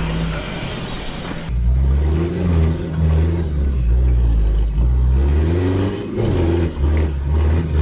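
Toyota Land Cruiser pickup's engine driving hard over an off-road trial course, its revs rising and falling again and again with short dips as the driver works the throttle. After the first second and a half it is heard from inside the cab, muffled and deep.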